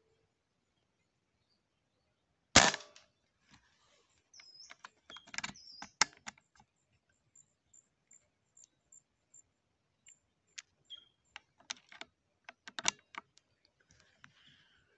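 A single shot from a suppressed PCP air rifle (Bima 336) about two and a half seconds in, a sharp crack that is the loudest sound. It is followed by brief rustles and scattered clicks.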